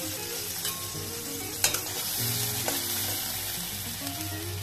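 Curd and spices (garlic, curry leaves, dried red chillies, coriander powder) sizzling in hot oil in a steel kadai, stirred with a steel spatula, with one sharp click about a second and a half in.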